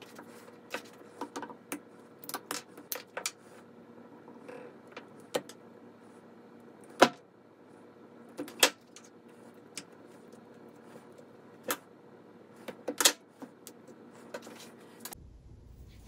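Wire strippers cutting and stripping the ends of a power cord's insulated wires: a string of sharp, irregular clicks and snips, the loudest about seven and thirteen seconds in.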